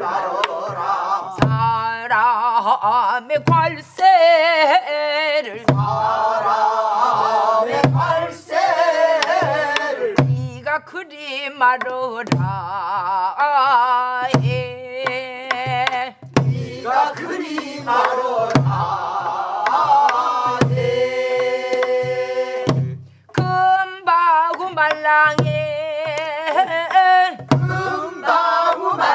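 Pansori singing, a woman's voice with wide, wavering vibrato, over buk barrel drums. The drums give steady low thumps on the drumhead and sharp clicks of the stick on the drum's wooden shell.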